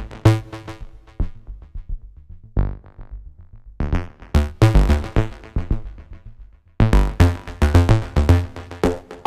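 Electronic deep tech beat playing back from FL Studio: drum-machine kicks and percussion under a synth arpeggio from a u-he Diva preset. The pattern thins out and nearly stops for a moment about two-thirds of the way through, then comes back in fuller.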